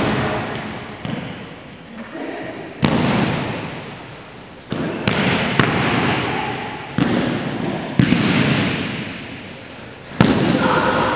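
Aikido partners being thrown and taking breakfalls onto the mats: about six sudden thuds and slaps, roughly one every one to two seconds, each followed by a fading echo in the large sports hall.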